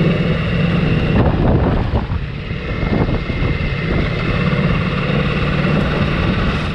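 Ducati Multistrada V4S's 1,158 cc V4 Granturismo engine running steadily at a light-load cruise in fifth gear, about 45 km/h, heard from the rider's seat with wind noise over the microphone.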